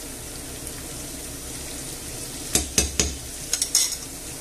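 Chopped onion, garlic and red pepper frying gently in olive oil in a pan, with a steady sizzle. About two and a half seconds in, a spoon clinks sharply several times in quick succession.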